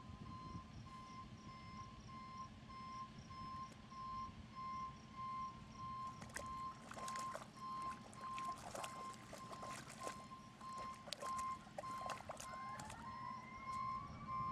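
Boston terrier splashing and pawing in a shallow mud puddle: a run of wet slaps and splashes from about six seconds in that stops a second or so before the end. A vehicle's reversing alarm beeps steadily under it, and a siren starts up near the end, rising in pitch.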